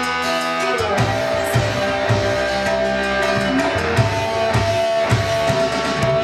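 Live dangdut band playing: kendang hand drums and keyboard with guitar, a steady beat under sustained melody notes.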